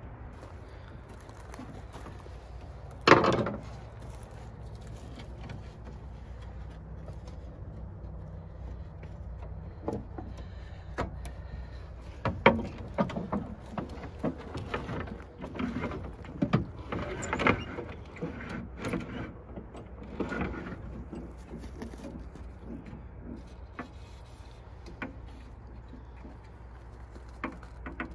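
Metal clanks and knocks of hands and tools working on a car's steel tailgate, with one loud knock about three seconds in and a busy run of clicks and clunks in the middle, over a steady low hum.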